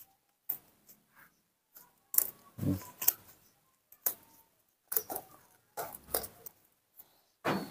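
Thin white rubber gloves being worked slowly onto the hands: a dozen or so short rustles and snaps of the glove material.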